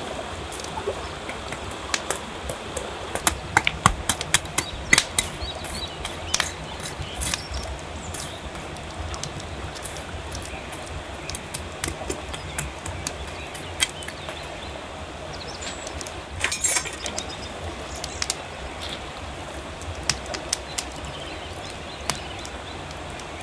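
Wood-fire embers crackling with sharp pops, thickest about three to five seconds in and scattered after, over the steady rush of a river.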